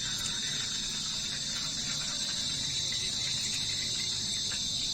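Crickets chirping in a steady, continuous high-pitched chorus.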